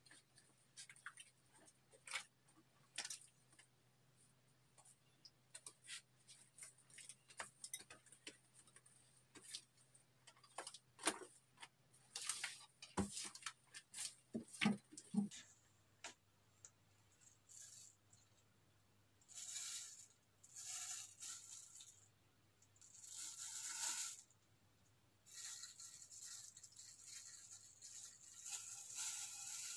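Fluffy white slime made with shaving foam being kneaded and squeezed by hand, giving many small crackling pops and squelches. About halfway through this gives way to several longer, hissing rustles.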